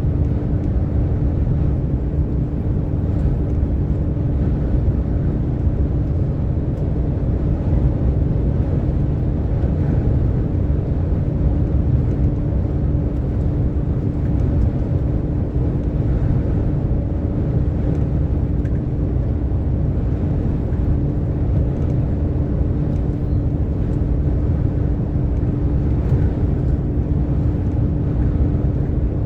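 DAF XF 460 truck cruising at steady motorway speed: an even low diesel drone and road rumble with a steady hum over it, unchanging throughout.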